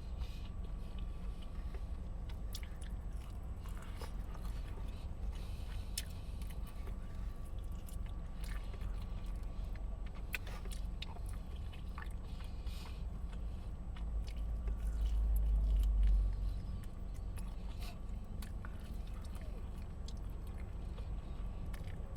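A person eating chicken wings close to the microphone: chewing and biting with small clicks and crunches, over a steady low hum. A louder low rumble swells for about two seconds near the middle.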